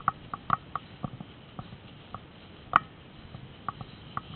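Scattered faint clicks and light rustles at irregular intervals, with one sharper click a little more than halfway through: handling and movement noise as the camera is carried through tall grass.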